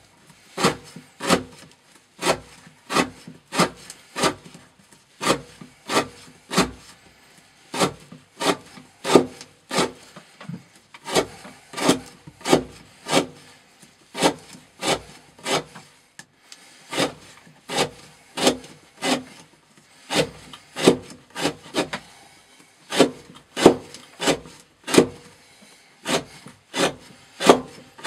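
A CPM 15V steel knife blade shaving curls off the edge of a wooden board, stroke after stroke, about one and a half strokes a second, with a couple of short pauses. The repeated cutting wears the edge down in an edge-retention test.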